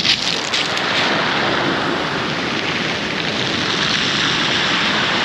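Surf washing up and drawing back through a beach of rounded black cobbles, the stones rattling against each other in a steady, dense hiss.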